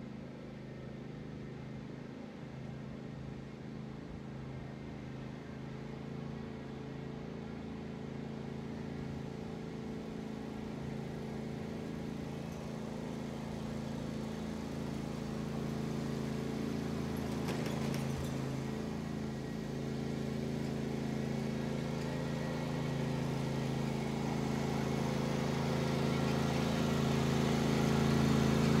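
Riding lawn mower engine running steadily, getting louder as the mower drives closer.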